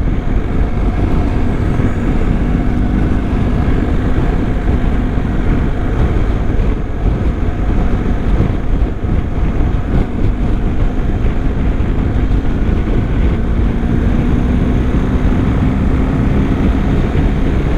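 A BMW R1250's boxer-twin engine running steadily under a ride, heavily overlaid with wind rushing over the microphone, with a faint engine note rising slightly near the end.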